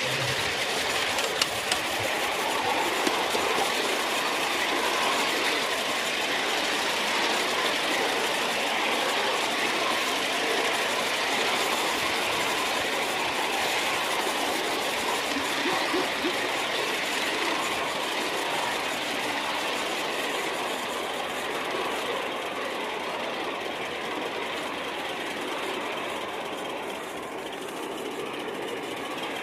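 A 2.5-inch gauge LBSC Ayesha live-steam miniature locomotive running steadily along the track, heard close up from a camera riding on the engine.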